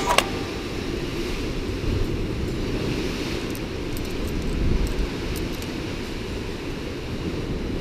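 Wind rumbling steadily on the microphone over the wash of sea waves breaking against the rocks at the foot of the cliff.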